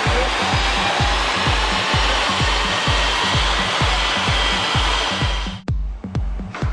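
Peugeot Expert 2.0 HDi four-cylinder turbo-diesel van running hard on a chassis dynamometer, a steady loud rushing noise of engine, rollers and airflow, over a fast electronic music beat. Near the end the run noise cuts off suddenly, leaving only the music.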